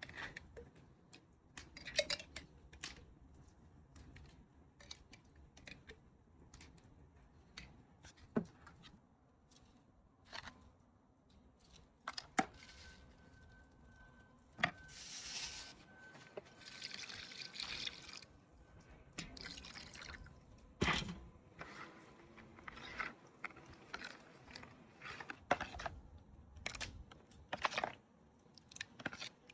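Food-preparation handling sounds: scattered light taps, clicks and knocks, with a hissing, pouring-like stretch about halfway through.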